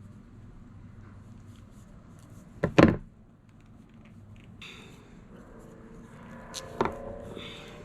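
Two sharp knocks about four seconds apart, with scraping and light clatter from parts being handled between them.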